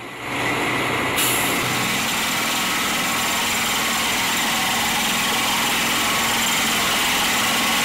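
Truck-mounted water-well drilling rig running steadily as it bores into the ground: a constant engine-and-drill din that turns hissier about a second in.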